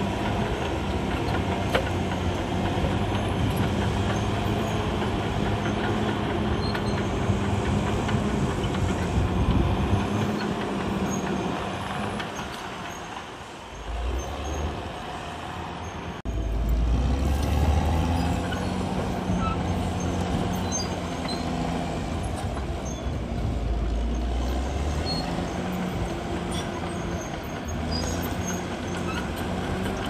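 CAT D6R XL crawler bulldozer's diesel engine running hard as the dozer pushes brush and felled trees. The engine eases off briefly about midway, then comes back loud.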